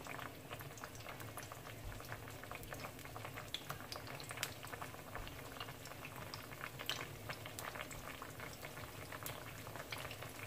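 Ripe plantain slices frying in shallow oil in a pan: a steady bubbling crackle of small irregular pops, with a few louder ones.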